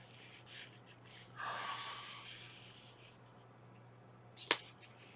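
Soft rubbing and handling of a crochet pattern keeper case, then a single sharp click of its snap closure about four and a half seconds in.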